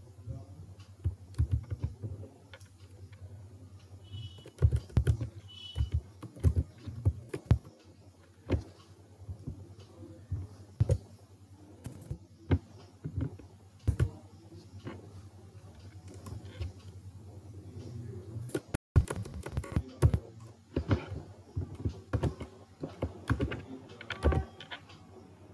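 Computer keyboard typing: irregular keystrokes, some in quick runs, over a low steady hum.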